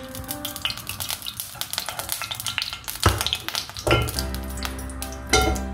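Hot ghee sizzling and crackling in an iron wok, with a couple of louder spells of crackling about three and four seconds in.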